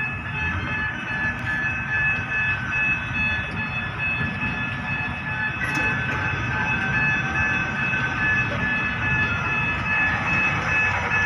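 Gantry crane machinery running: a steady low rumble with a steady high whine.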